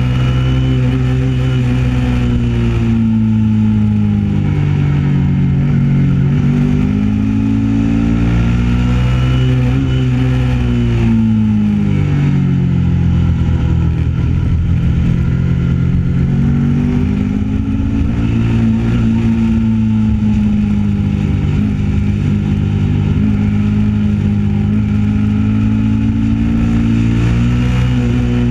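Kawasaki Ninja 650 parallel-twin engine heard from on board the motorcycle, its note rising and falling again and again as the rider accelerates out of bends and rolls off into the next, with wind rumbling underneath.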